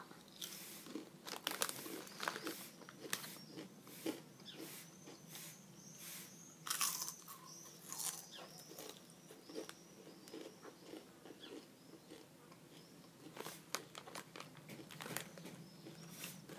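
A boy biting and chewing potato crisps one at a time: irregular crunches throughout, with louder bites about seven and eight seconds in.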